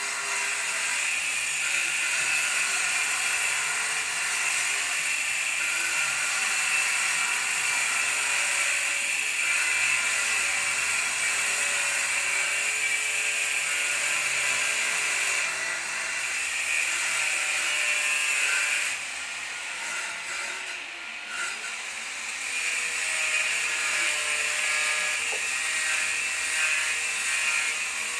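Steady mechanical tool noise that drops away for a few seconds about two-thirds of the way through, then resumes.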